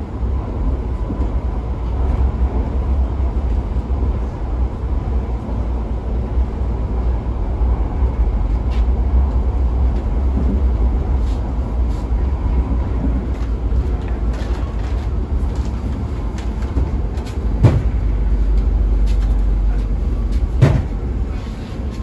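Cabin running noise of a PESA EN97 electric multiple unit on the move: a steady low rumble of wheels and running gear on the track. Two sharp knocks come near the end, about three seconds apart.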